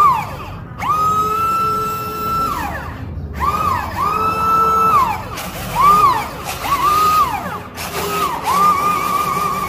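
A siren wailing in repeated rises and falls, each climbing to a held high tone and sliding back down, some long and some short, cut off abruptly twice.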